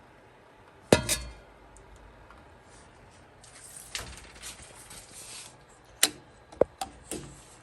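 Metal objects clinking and knocking: a loud clink about a second in, then several lighter clinks later, one with a short ring, with soft rustling between.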